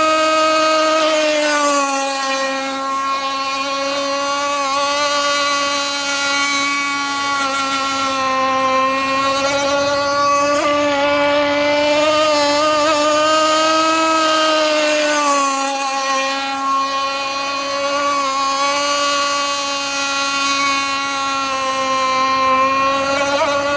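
Radio-controlled racing boat (a Warpath hull with a 7316/2-450-LL-CT powerplant) running flat out, its motor giving a steady high-pitched whine. The pitch dips a little twice and climbs back as the boat turns and straightens.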